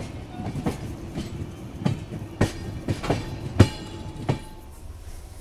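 Wheels of a moving Duronto Express passenger train clacking over track joints: a run of sharp knocks at uneven intervals, loudest just past the middle, over the steady rumble of the running train. The knocks stop near the end.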